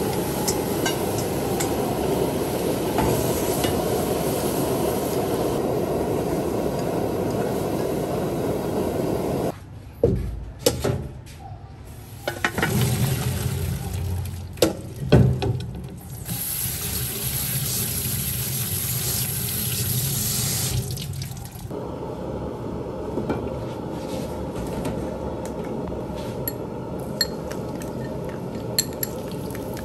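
Water boiling in a wok as sliced sea snail is tipped in, then a few sharp metal knocks. Next, a kitchen sink's spray tap runs over a metal colander of blanched snail pieces for about six seconds, followed by a quieter steady hiss with faint ticks.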